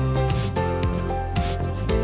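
Instrumental background music: held notes that change every half second or so, over a light percussive beat.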